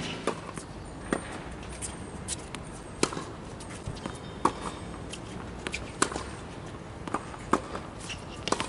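Tennis balls struck by rackets in a rally on a hard court: sharp hits about every second and a half, with softer ball bounces between them.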